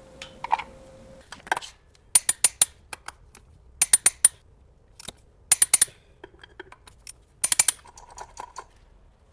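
Sharp metallic clicks and clinks in short bursts of three to five, like tools and bolts against metal engine parts during work on the flywheel. A faint steady hum stops about a second in.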